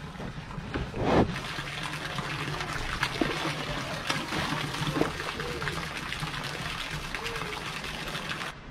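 Water splashing and sloshing in a stock tank as a black bear moves about in it, with a stream of water trickling into the tank. A louder splash or knock comes about a second in.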